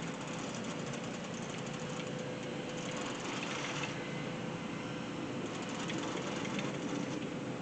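Fishing reel being cranked steadily, a continuous whirring with fine rapid ticking and a faint steady whine.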